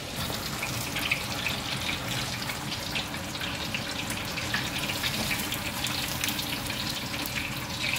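Pork knuckle deep-frying in a wok of hot oil: steady sizzling with many small crackles and pops.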